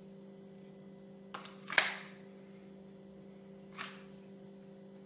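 Sharp clicks of a handgun being handled in both hands just after the draw: a faint click about a second in, a loud one just after, and another near four seconds, over a steady low hum.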